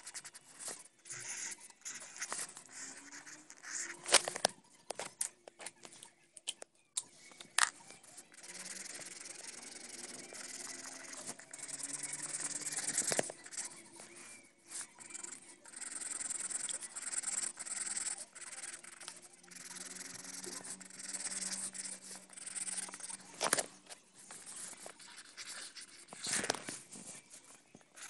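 Felt-tip markers scribbling and scratching across paper in quick colouring strokes, with a few sharp clicks scattered through.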